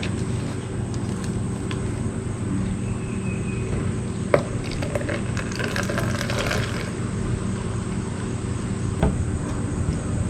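Steady machine hum. A sharp click comes about four seconds in, then a short stretch of rattling and scraping, then another click near the end.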